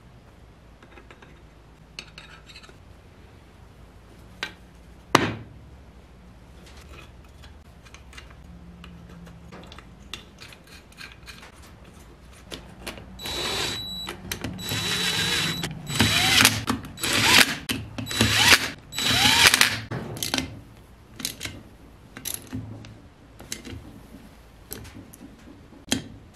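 Cordless driver running in the crankcase cover bolts of a Briggs & Stratton L-head engine in about six loud bursts, each with a steady motor whine, between about 13 and 20 seconds in. Before this come light clinks of parts being handled and one sharp knock; after it come light clicks of a hand ratchet snugging the bolts.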